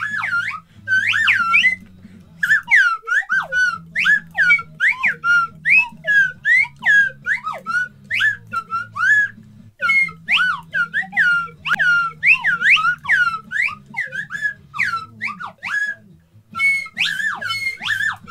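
Slide whistle played in a long run of short, swooping notes, its pitch sliding rapidly up and down as the plunger is worked, with brief pauses about two and a half seconds in and near the end.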